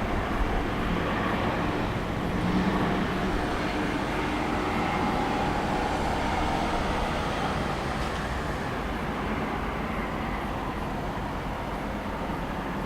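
A car engine running steadily, with road-traffic noise and a short swell in level about two and a half seconds in.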